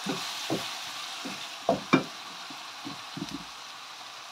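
Rawon spice paste sizzling in oil in a nonstick pan, the heat just turned down, while a wooden spatula scrapes and stirs it in about eight strokes. The two loudest strokes come near two seconds in. The stirring stops about three and a half seconds in and the sizzle goes on, slowly fading.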